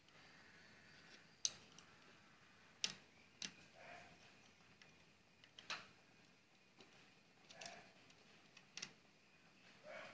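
Faint, scattered clicks and light taps, about five sharp ones over ten seconds with softer rustles between. They come from small metal parts being handled as a bike brake cable end is fitted into a bent sheet-metal pedal bracket.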